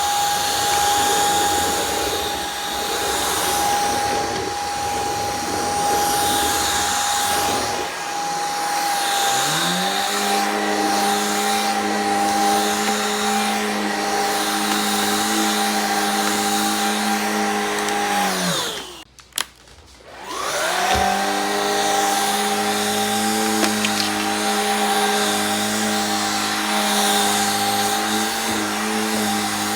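Shark Rocket Pro stick vacuum running with a steady high motor whine; about a third of the way in, a lower hum rises in beneath it. About two-thirds through, it winds down and stops for a second or so with a click, then spins back up to full speed.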